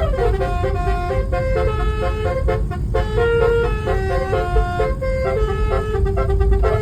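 Basuri melody car horn playing a tune of quickly changing electronic notes, with a short falling glide at the start, over a steady low rumble.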